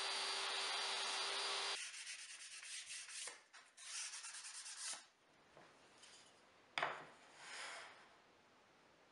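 A table saw motor runs steadily with a low hum and stops abruptly about two seconds in. Then plywood edges are rubbed by hand with sandpaper in quick strokes, with a sharp wooden knock about seven seconds in and one more rubbing stroke after it.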